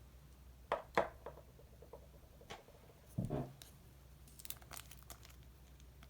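Close-up handling sounds from mixing makeup into slime: a few sharp clicks and crinkles, with a duller, lower thud a little past the middle.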